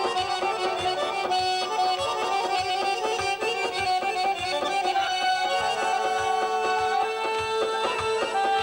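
Azerbaijani garmon (diatonic button accordion) playing a lively folk melody over a steady beat. A sustained drone-like note joins about halfway through.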